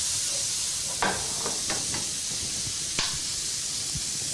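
Diced onions, garlic and ginger sizzling in oil in a frying pan, a steady hiss. A few knocks of a stirring utensil against the pan about a second in, around two seconds in, and a sharper one about three seconds in.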